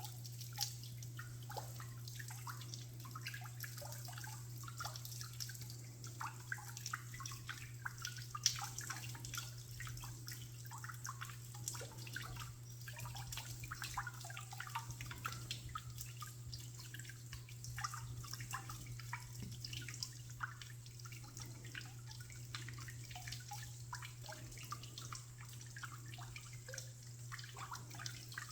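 Water dripping in many quick, irregular drops, over a steady low hum.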